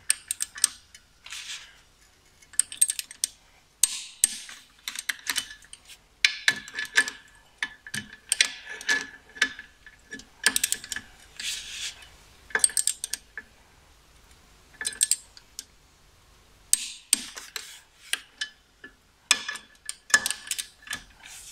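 Ratchet-head torque wrench clicking in short runs with pauses between, as the clutch pressure plate bolts are torqued down to 23–28 Nm.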